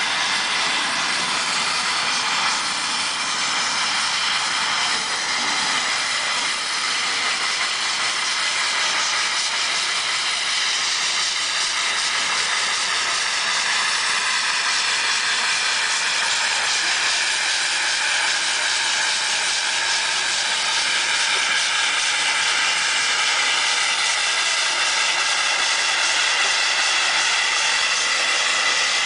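Mount Washington Cog Railway steam locomotive No. 4 'Chocorua' hissing steam steadily as it passes.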